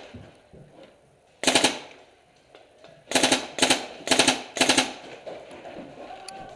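Paintball marker firing five quick strings of rapid shots: one about a second and a half in, then four in close succession between about three and five seconds.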